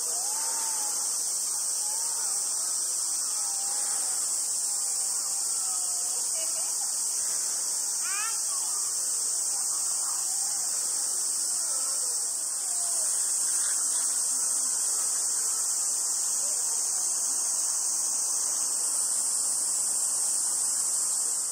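A chorus of cicadas shrilling in a steady, high-pitched, unbroken drone.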